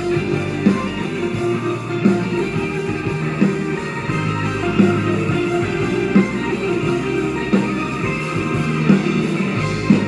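Live band music: an instrumental passage with guitar and a steady beat, a strong accent falling about every second and a half.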